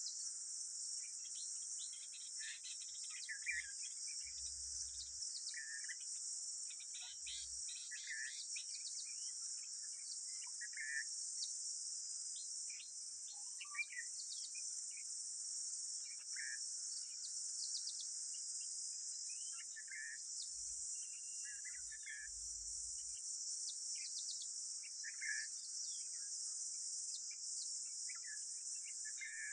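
Steady, high-pitched chorus of insects, with short bird calls repeating every couple of seconds over it.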